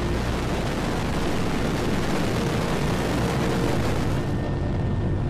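Relativity Space Terran 1 rocket's first-stage engines firing during lift-off and ascent: a loud, steady, crackling noise.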